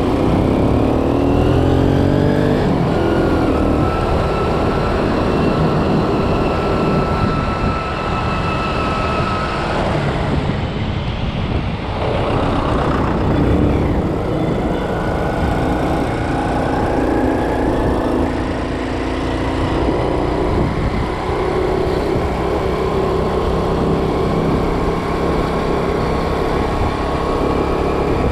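Motor scooter engine running under the rider while riding through motorbike traffic, its note rising as it accelerates in the first couple of seconds and then holding fairly steady, over constant road and wind noise.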